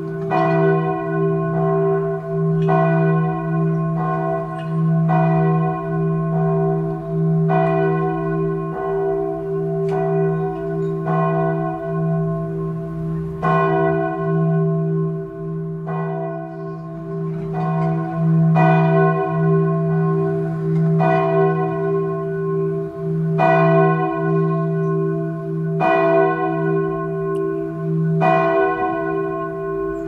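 A soft church bell struck over and over at an even pace, a little slower than once a second, each stroke sounding over the hum still ringing from the last.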